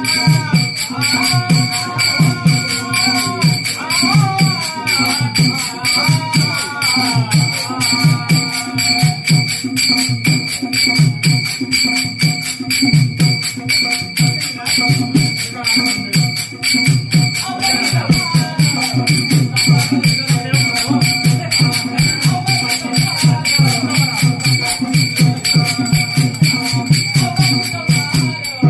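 Devotional bhajan music: a row of players keeps up a fast, steady rhythm on small brass hand cymbals (taal) over a drum, with group singing in stretches near the start and again in the middle.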